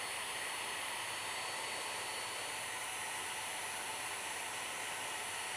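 Heat gun blowing steadily, shrinking glue-lined heat-shrink tubing over a wire splice: an even hiss of moving air at a constant level.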